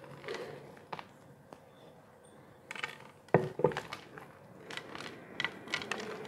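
Chopped peanuts being scattered by hand over a dessert in a glass baking dish: scattered light clicks and ticks, with a pair of louder knocks about three and a half seconds in.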